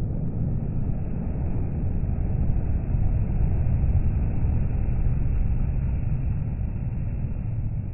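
A Renault rigid lorry with a crane-mounted flatbed passing on a motorway, its engine and tyre noise a low rumble that swells to its loudest around the middle and eases off near the end, over the wash of other motorway traffic.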